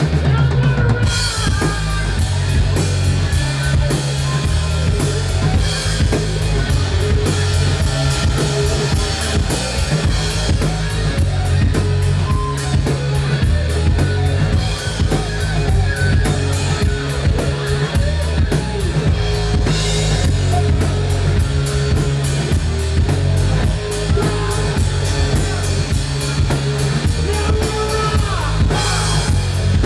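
Live rock band playing loudly: a drum kit with a heavy bass drum, driving bass and electric guitars.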